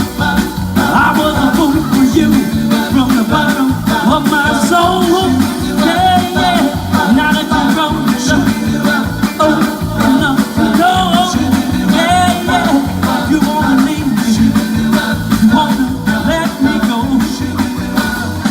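Live party band playing an upbeat number with a steady beat and a bending melodic lead line.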